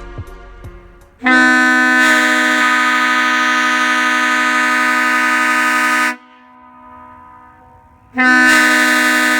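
Leslie S2A two-chime air train horn with aluminum Tabby power chambers, blown in two long blasts: a steady, loud, low two-note chord that starts sharply about a second in and cuts off after about five seconds, then starts again about two seconds later.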